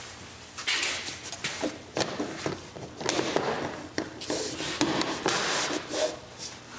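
Hands rustling and clicking bundled wiring and the snowmobile's plastic instrument-pod trim, in several bouts of rustling with sharp taps and knocks.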